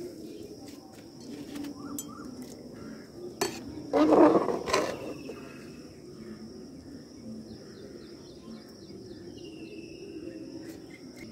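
Slotted metal spoon stirring vermicelli in an aluminium pot of boiling water, with scrapes and knocks of the spoon against the pot, the loudest about four seconds in. A steady high insect trill runs underneath.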